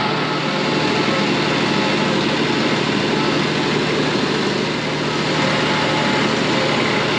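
Compact front-loader tractor's engine running steadily, with no change in speed.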